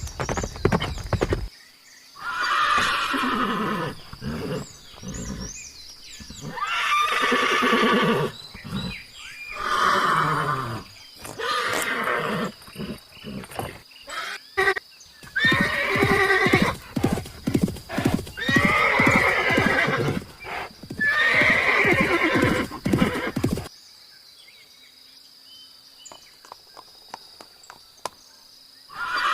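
Horse whinnying again and again, about seven calls each falling in pitch, with hooves clip-clopping between them. The last few seconds are much quieter, with only faint hoof clicks.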